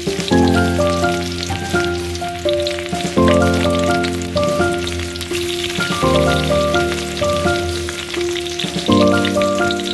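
Hot oil sizzling in a steel wok as small bits fry in it, with fine crackles throughout. Background music with sustained chords plays over it.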